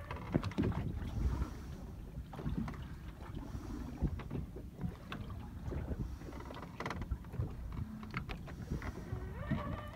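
Small boat sitting on a choppy sea: irregular knocks and slaps of water against the 5.3 m Polycraft hull, over a low wind rumble on the microphone.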